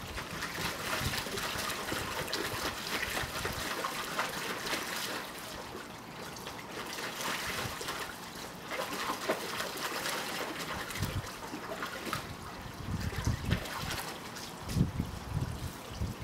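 Water splashing and sloshing as a Siberian husky puppy paws and digs at it in a plastic kiddie pool, with a few dull thumps in the last few seconds.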